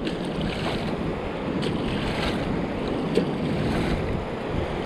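Wind buffeting the microphone over shallow surf washing across sand, a steady rushing noise with a few faint knocks.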